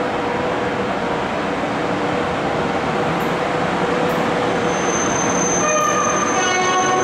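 Electric locomotive hauling passenger coaches along a station track, a steady running noise growing slightly louder as it comes closer. About six seconds in, several high tones sound together on top of it.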